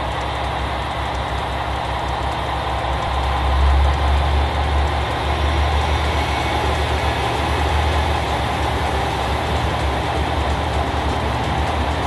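KiHa 120 diesel railcar's engine idling with a steady low rumble, swelling a little about four seconds in.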